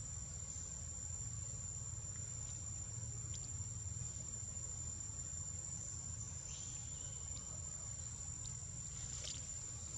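Steady, high-pitched insect trill with no break, over a low steady rumble.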